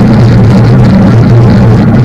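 Motor of the vehicle carrying the camera, running steadily as it travels over a dirt track, with a loud, wavering low hum over rough rolling noise.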